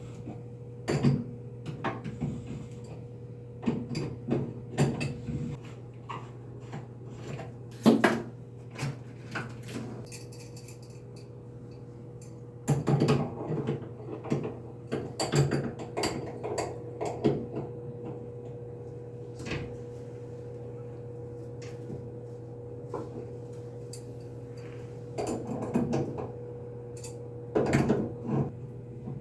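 Irregular knocks, clicks and clatter of hard objects being handled, in small clusters, over a steady electrical hum.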